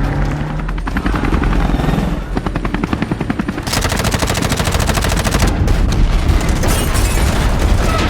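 Film sound effects of rapid automatic gunfire, with a long fast burst about four seconds in, over a steady low rumble.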